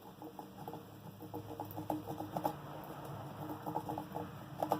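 Half a clothespin dabbing and spreading runny rubber cement on a tyre, making quick, irregular light ticks and wet taps that come thicker from about two seconds in.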